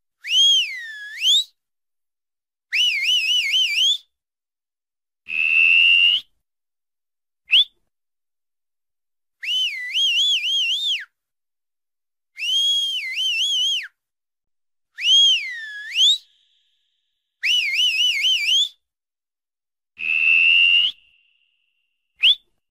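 A person whistling through the fingers: a series of about ten loud, high whistled calls of a second or so each, separated by short silences. Some swoop down and back up, some warble rapidly, and two are held on a steady pitch, with a very short chirp twice.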